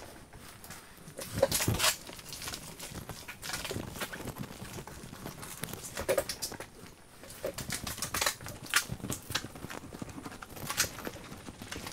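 Irregular knocks, clicks and wet rubbing from a car being hand-washed with a soapy wash mitt and bucket, the loudest cluster about two seconds in.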